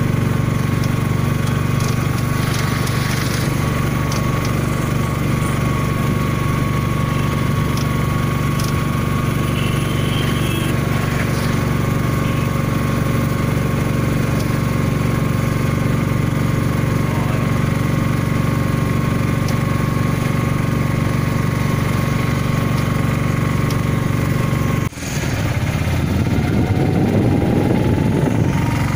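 An engine running steadily at an even pitch. It breaks off suddenly for a moment about 25 seconds in, then goes on with a rising whine.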